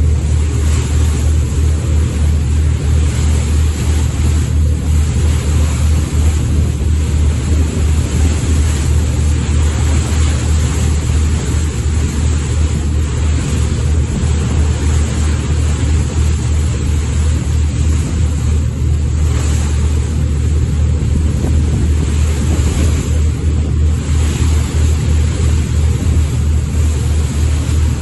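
Steady, loud drone of a boat's engine under way, with wind and water noise rushing over the microphone.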